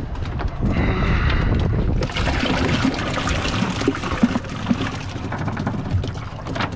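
Water trickling and splashing.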